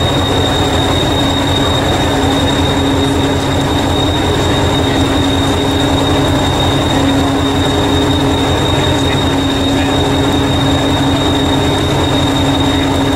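Diesel engine of a stationary green heritage diesel-electric multiple unit idling, a steady low throb with a steady high-pitched whine over it.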